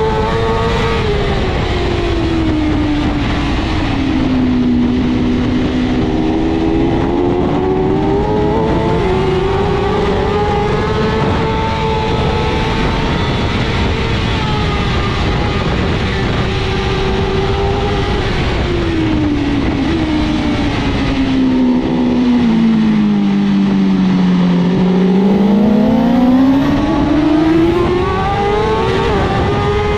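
BMW S1000RR inline-four superbike engine at race pace under heavy wind rush. The revs drop in the first few seconds, climb and hold, then fall steadily for a slow corner about two-thirds of the way through before rising hard on acceleration near the end.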